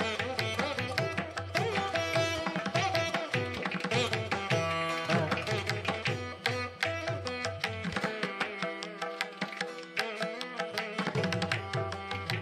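Background instrumental music with a quick, busy percussion rhythm under a pitched melody; the low bass drops out for about three seconds past the middle.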